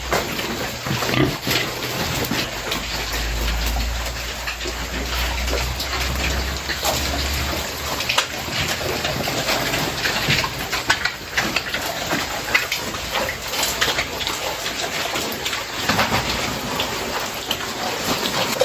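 Pigs feeding on freshly cut madre de agua leaves: a steady crackle of rustling and crunching foliage, with pig grunts. A low rumble runs under it for a few seconds near the start.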